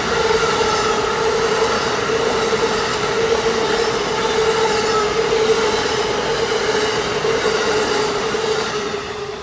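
Amtrak Northeast Regional's stainless-steel Amfleet passenger cars rolling past at speed: wheels rumbling on the rails, with a steady whining tone over the noise. The sound starts to fade near the end as the last car goes by.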